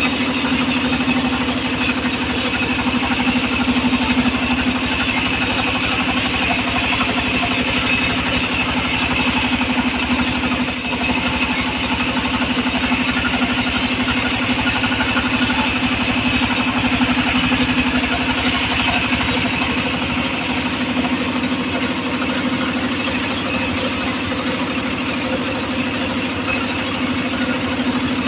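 Engine of a homemade circular sawmill running steadily at one constant speed.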